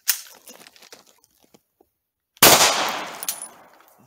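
A single shot from a Glock 9mm pistol about two and a half seconds in, its report dying away over about a second and a half. Before it there are a sharp click and some small clicks and rattles.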